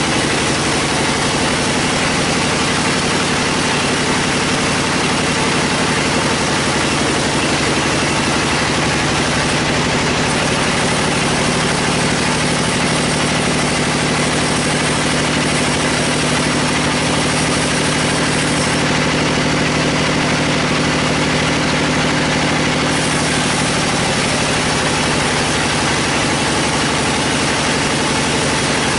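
Band sawmill running steadily while its blade cuts through a large log: a constant machine drone with an even hiss over it. The drone's tone shifts slightly about two-thirds of the way through.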